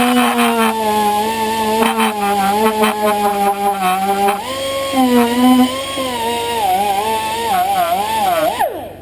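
Air tool spinning a steel wire brush against a valve to scrub off built-up carbon. It runs with a whine that sags and wavers in pitch under load, with scratchy clicks of the bristles early on. Near the end the whine falls in pitch as the tool spins down and stops.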